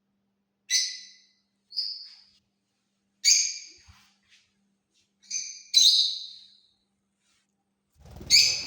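Lovebird giving short, sharp high-pitched chirps, about six of them spaced a second or two apart, with a faint low rumble under the last one near the end.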